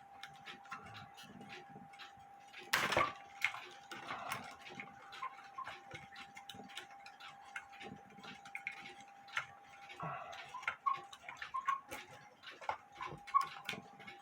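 Light wooden clicks and knocks of a bellows tube being worked loose from a cuckoo clock case, with one louder knock about three seconds in, over a faint steady high hum.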